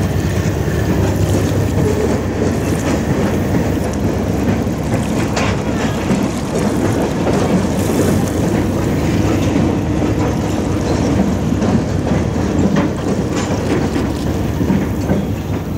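Norfolk Southern freight train's cars rolling across a long wooden trestle bridge: a steady rumble with a few scattered faint clicks of wheels over the rail.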